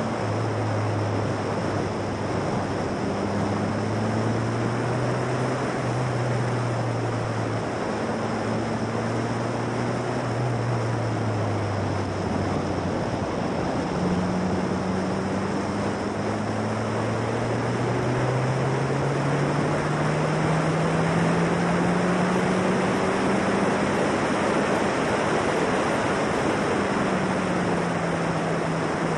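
Formula Silverstone single-seater's 1.6 Ford Duratec four-cylinder engine running under power, its note climbing and dropping as the car goes through the gears, with a long rise in the second half and a drop near the end. Heavy wind rush on the open-cockpit microphone runs over it throughout.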